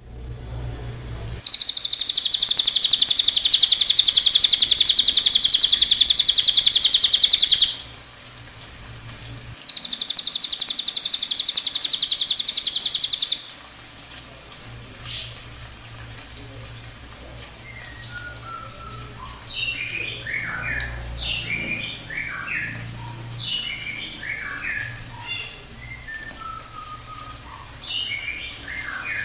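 Songbird song: two long, loud, very fast high-pitched trills, the first about six seconds and the second about four, followed by a run of quick, varied chirps and short whistles. A faint low hum runs underneath.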